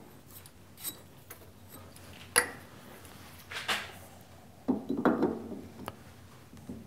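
A few light metallic clicks and short scrapes as a small electric motor's cylindrical body is pushed into the freshly bored steel eccentric held in a lathe's 4-jaw chuck for a test fit. The sharpest click comes about two and a half seconds in, with a little run of scrapes and clicks around five seconds in.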